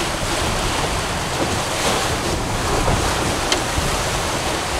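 Wind and breaking ocean waves around a sailing catamaran under way, with wind buffeting the microphone.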